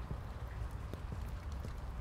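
Footsteps on wet asphalt in a steady walking rhythm, over a low rumble of wind on the microphone.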